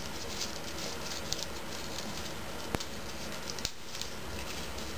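Paper rustling and crinkling faintly under the fingers as small origami folds (inside reverse folds on the toes) are worked, over a steady background hiss, with one sharp click a little past the middle.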